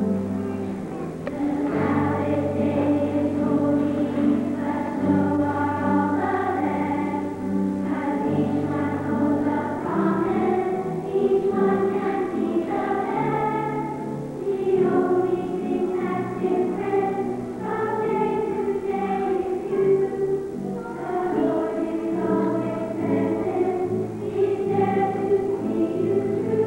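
A school choir singing a song from a stage musical, with instrumental accompaniment holding low sustained notes beneath the voices.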